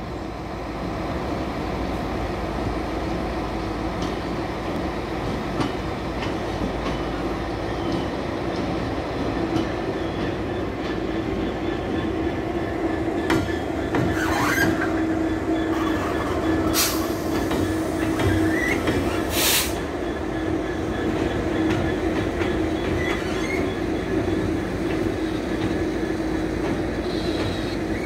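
A GBRf Class 66 diesel locomotive, its two-stroke V12 engine running with a steady drone, passes light engine with no train behind it, and its wheels run on the track. The engine sound is loudest around the middle as the locomotive goes by, and three short sharp high sounds come near the middle of the pass.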